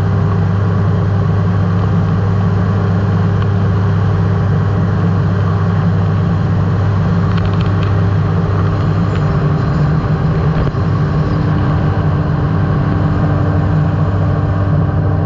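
Weight-shift microlight trike's engine and propeller running steadily in flight, a loud continuous drone heard from the open cockpit.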